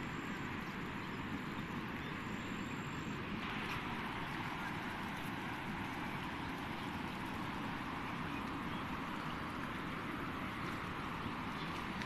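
Muddy floodwater flowing through a rice paddy over flattened rice plants, a steady, even sound of running water.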